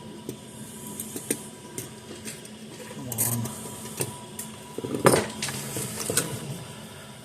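Light clicks and handling knocks of tools and parts on an electronics repair bench while a fence charger's circuit board is desoldered, with a brief hiss about three seconds in and one sharper knock about five seconds in, over a faint steady hum.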